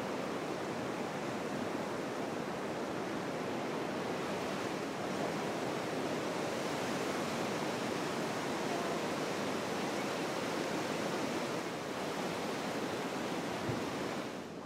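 Ocean surf breaking and washing up a sandy beach: a steady, unbroken rush of water.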